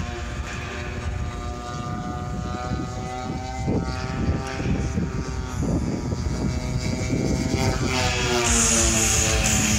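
Radio-controlled aerobatic model airplane flying 3D maneuvers: its motor and propeller give a steady buzz whose pitch swings up and down several times as the throttle is worked.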